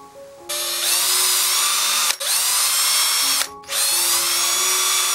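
Cordless drill running at speed against a wooden board in three runs of a second or so each, separated by short pauses. The motor whine rises as it spins up at the start of each run, then holds steady.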